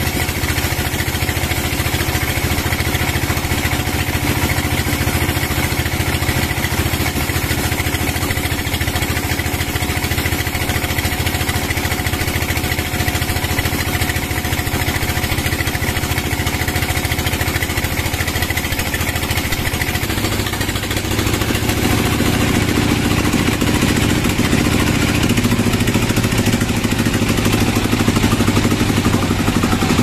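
Sawmill machinery running with a steady engine drone. About 20 seconds in the sound turns deeper and slightly louder.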